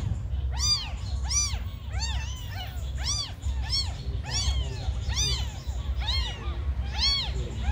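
Several newborn kittens mewing: thin, high cries that rise and fall in pitch, about two a second and often overlapping, over a steady low rumble.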